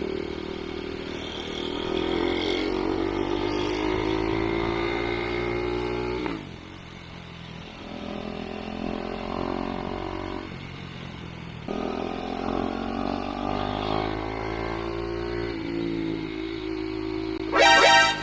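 KTM 390 Duke's single-cylinder engine under way, its pitch climbing as it accelerates, easing off about six seconds in and pulling again from about twelve seconds. Near the end, a short, loud horn blast.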